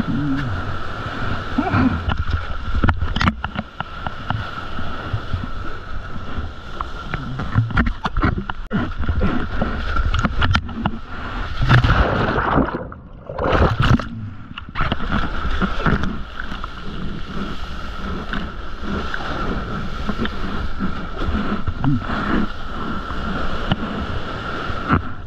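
Ocean whitewater splashing and sloshing right against a mouth-mounted GoPro as a surfer moves through the shore break. About halfway through, the sound goes muffled for a couple of seconds as the camera goes underwater, then the splashing returns.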